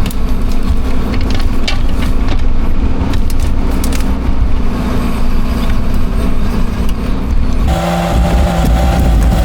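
An engine runs steadily with scattered knocks and rattles over it. Nearly eight seconds in, its note changes to a new steady pitch.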